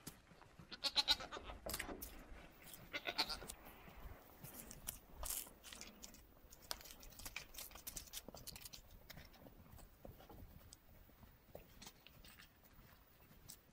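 Llama calling: two short, pitched calls about a second and three seconds in. After them come faint scattered crackles.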